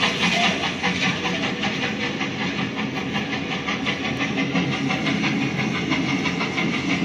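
Steam-train sound effect played over a sound system: a rhythmic chugging with hissing steam, the intro of a children's train dance song.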